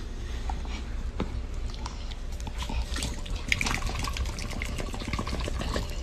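A black puppy mouthing and licking at a hand rubbing its face, making many small wet clicks and smacks over a steady low rumble.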